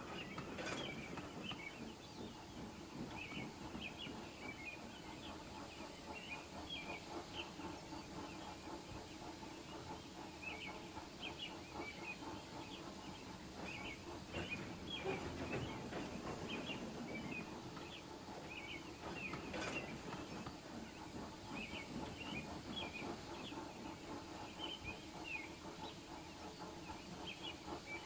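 Birds chirping again and again over a low, steady rumble of outdoor ambience.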